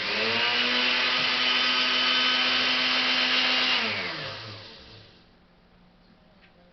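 Countertop blender grinding Flamin' Hot Cheetos into fine crumbs. The motor spins up, runs steadily for nearly four seconds, then winds down with a falling pitch and stops.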